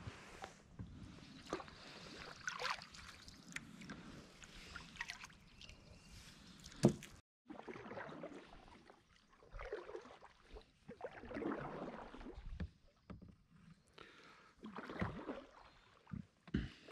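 Kayak paddle strokes: the blades dipping and pulling through calm water in soft, irregular swishes and drips. One sharp knock about seven seconds in.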